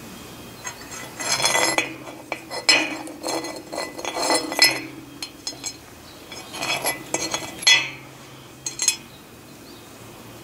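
Small heat-blued steel blocks clinking and knocking as they are handled on a wire rod and set down on a board, in several bursts of sharp metal-on-metal and metal-on-wood contacts.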